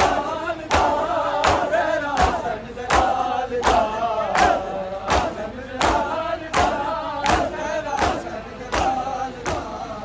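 A crowd of men chanting a noha together while beating their chests in matam. The strikes of many hands land together in a steady beat, about one every three-quarters of a second, under the chanting voices.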